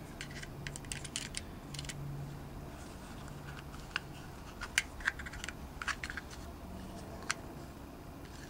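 Scattered small clicks and light taps, about a dozen, from a Grendel P12 pistol's polymer frame and steel trigger bar being handled and fitted together.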